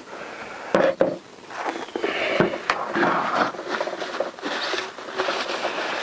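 A cloth rag rubbing and wiping spilled petrol off a petrol chainsaw's plastic housing: a rough, uneven scuffing. A few sharp clicks and knocks come in the first three seconds.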